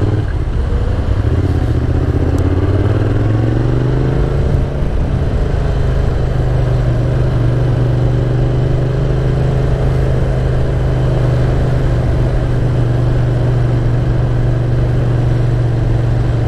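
Yamaha MT-07's parallel-twin engine through a Mivv GP Pro aftermarket exhaust, on the move: it climbs in pitch as the bike accelerates for the first few seconds, dips briefly about four and a half seconds in, then runs steadily at an even cruising speed.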